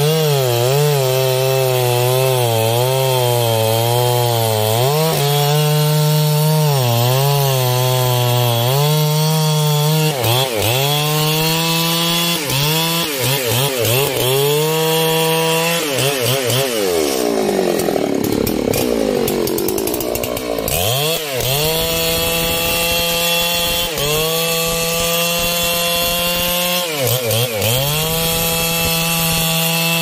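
Large two-stroke chainsaw cutting trembesi (rain tree) wood at high revs. Its engine note sags repeatedly as the bar bites under load, then climbs back. For a few seconds around the middle the note breaks into a rough, wavering sound before settling back to a steady high pitch.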